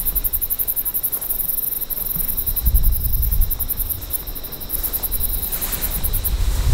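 Insects trilling in a rapid, even, high-pitched pulse that stops shortly before the end, over gusts of wind rumbling on the microphone.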